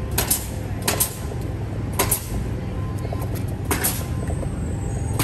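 Steady low rumble of city street traffic, with short sharp knocks every second or so.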